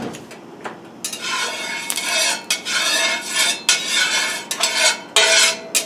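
A utensil scraping and stirring around a hot frying pan, spreading oil, in a run of uneven strokes that start about a second in.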